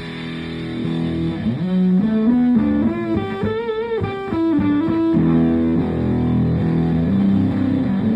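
Electric guitar (Fender Telecaster Deluxe) played through a Green Russian Big Muff fuzz pedal with scoop control into a Fender Twin Reverb–style amp, giving a sustained fuzzed tone. A lead phrase with bent notes and wide vibrato comes about two to five seconds in, then held chords.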